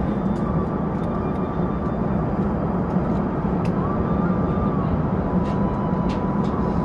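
Steady cabin noise inside an Airbus A380 in flight: an even rush of airflow and engine noise, heaviest in the low range. A faint high whine runs through it and steps up in pitch for about a second around the middle.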